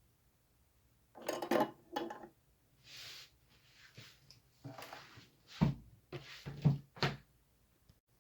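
Workbench handling noise: a run of short clatters and knocks as small hard objects and tools are picked up and set down, with a few duller thumps in the second half.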